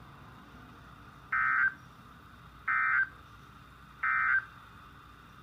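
Three short bursts of Emergency Alert System digital data tones, evenly spaced about a second and a half apart: the end-of-message code that closes a broadcast warning.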